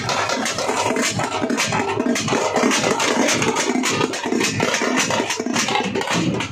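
A troupe of tamate frame drums, the stick-played drums of Karnataka, beaten together in a fast, loud, dense rhythm, many strokes a second with no let-up.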